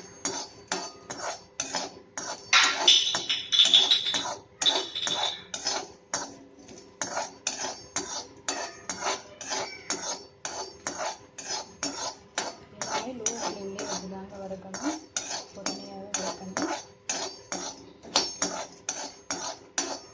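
A spoon scraping and knocking against a metal kadai while stirring whole spices (cinnamon sticks, cloves, star anise) being dry-roasted. The strokes come about two or three a second and are louder and quicker for a couple of seconds near the start.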